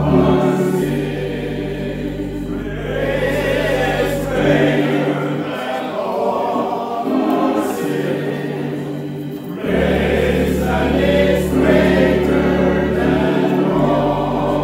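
Men's chorale singing a hymn in long held chords over a deep bass line. About halfway through, the bass drops out and the sound thins for a few seconds, then the full choir comes back in.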